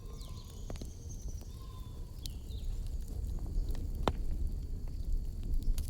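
Outdoor evening ambience over a steady low rumble: a handful of sharp pops from a crackling bonfire, with short bird calls.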